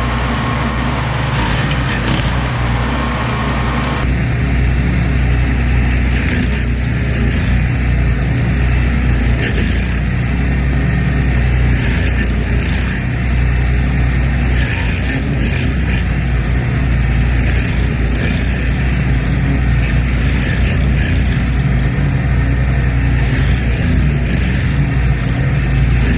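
Heavy machine engine running steadily at constant speed, a loud low hum with no change in pitch.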